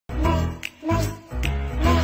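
Background music: an upbeat tune with deep bass notes on a steady beat and short percussion hits.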